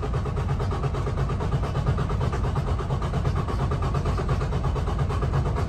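Detroit Diesel DD15 14.8-litre inline-six diesel cranking on the starter at about 170 rpm without firing, in a steady, even rhythm: an automatic compression test, with the engine set to crank but not start. Heard from inside the truck's cab.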